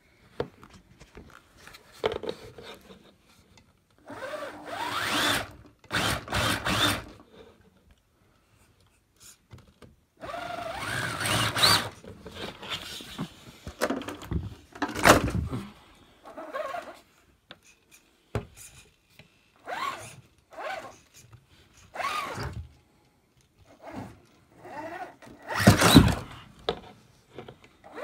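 Axial SCX10 Deadbolt radio-controlled crawler truck's electric motor and drivetrain whirring in a series of short bursts as the throttle is worked, the pitch rising and falling. Between the bursts come knocks and thuds of the truck and its tires on a wooden floor.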